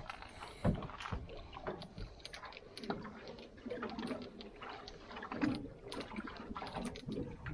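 Small waves lapping and slapping against a boat's hull, with irregular light knocks and one sharper knock a little under a second in.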